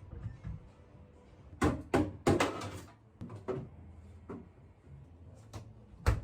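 Household handling noise during refrigerator cleaning: a string of light knocks and clatters, as of containers, shelves or a drawer being moved and set down, loudest about two seconds in.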